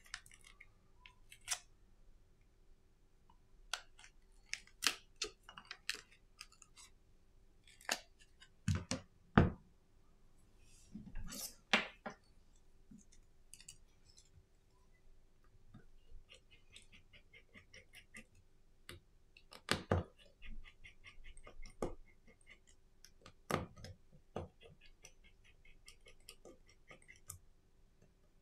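Small hand tools and phone parts clicking and tapping during a smartphone teardown, with a few sharper knocks. Twice there is a stretch of fast, fine, even ticking while screws are undone with a precision screwdriver.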